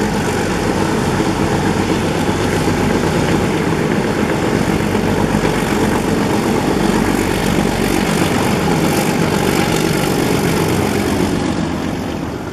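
ALCo WDG-3A diesel locomotive's engine working hard under load, pouring out black smoke as it hauls the train away from a halt: a loud, steady, heavy engine sound that fades out near the end.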